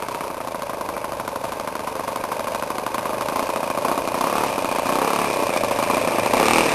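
Radio-controlled P-51 Mustang model's engine running with a fast, steady pulsing as the plane taxis toward the listener, growing steadily louder.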